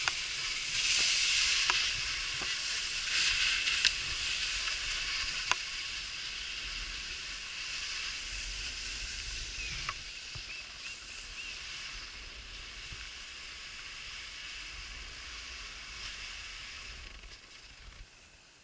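Skis hissing and scraping over snow in a steady noisy rush, loudest in the first few seconds and slowly fading toward the end, with a few sharp clicks.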